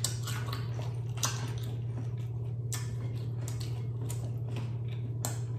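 Close-up crunching and chewing of crispy fried chicken skin: irregular crisp crackles several times a second, over a steady low hum.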